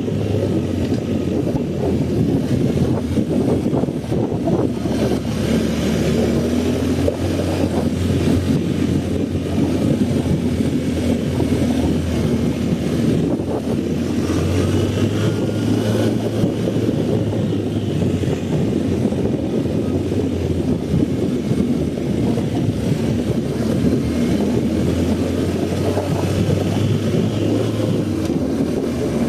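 BMW R 1250 GS boxer-twin engine running steadily while the bike is ridden, under a dense rumbling noise.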